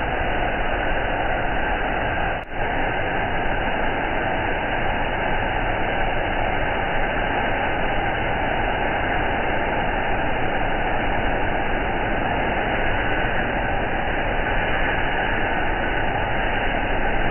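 Pressure-washer jet spraying water over a car body: a steady hiss, with a brief dropout about two and a half seconds in.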